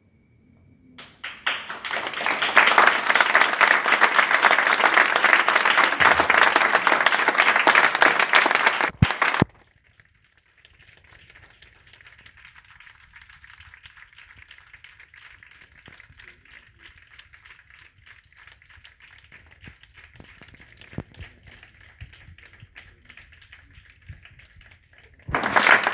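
Audience applauding and clapping, loud for several seconds and then cut off abruptly; fainter scattered clapping carries on afterwards.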